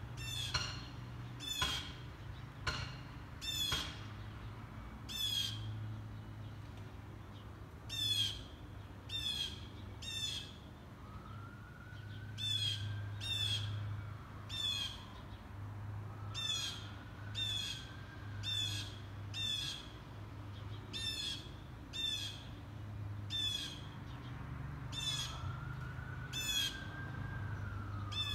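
A hawk calling over and over: short, high calls that fall in pitch, roughly one a second with a few pauses. Three times a fainter, longer tone rises and falls beneath them, and a steady low hum runs throughout.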